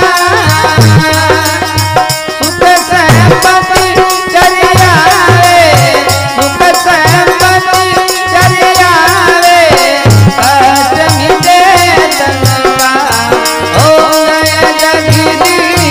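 Rajasthani devotional bhajan music: a wavering melody line over a steady hand-drum rhythm and rattling percussion, with no sung words.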